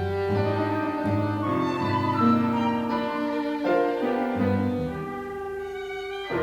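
A classical chamber quintet playing: sustained notes that shift every second or so, heard as bowed strings with piano.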